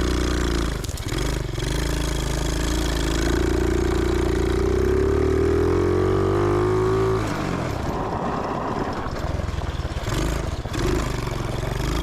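Small 125cc engine of a home-built reverse-trike ATV, revving up with its pitch climbing steadily for several seconds. About seven seconds in it drops off throttle and runs lower and rougher, with brief dips in engine speed.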